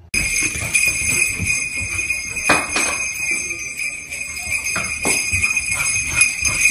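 Small bells jingling steadily in a high shimmer, with a few sharp knocks in between.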